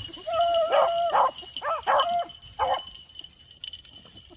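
Beagle hounds baying while running a rabbit's track: one drawn-out bawl of about a second, then several short chop barks. The calls trail off in the last second and a half.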